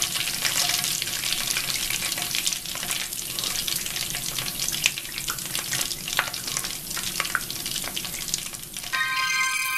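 Hot cooking oil in a frying pan, with soap added, sizzling and crackling with many small pops as it foams. Electronic music starts near the end.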